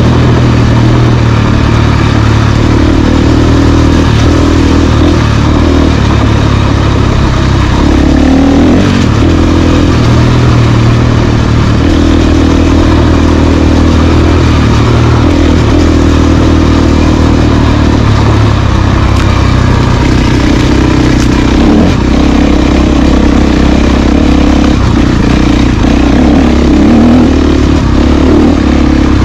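Dual-sport motorcycle engine running under way, its pitch dipping and rising with the throttle several times.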